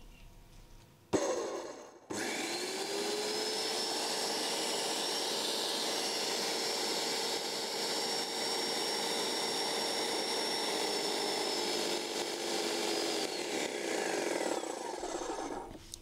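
Graco Magnum Project Plus airless paint sprayer's electric motor and piston pump running in prime, drawing paint up the suction tube and out the drain tube. It comes up to speed about two seconds in after a short click, runs steadily, and winds down and stops about a second before the end.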